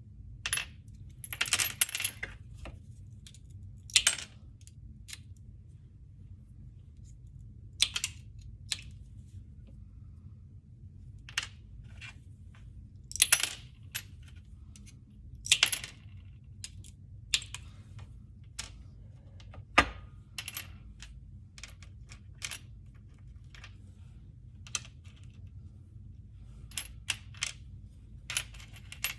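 Hand cutting at close range: irregular sharp snips and clicks, some in quick clusters and some alone, over a faint steady low hum.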